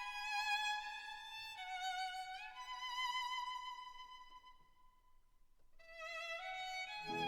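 Background music: a solo violin playing a slow melody of long held notes with vibrato, dying away briefly midway before picking up again, with lower accompaniment coming in near the end.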